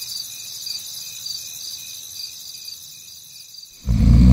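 Crickets chirping steadily, short high chirps about twice a second, setting a night-time mood. Near the end a much louder low-pitched sound cuts in over them.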